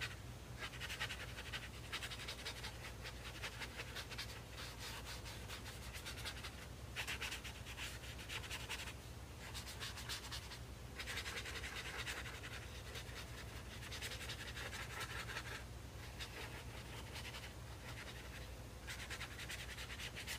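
Water brush scrubbing and stroking over toothy mixed-media sketchbook paper, blending dry pastel pigment with water. The scratchy rubbing comes in bursts of a few seconds with short pauses between them, over a low steady hum.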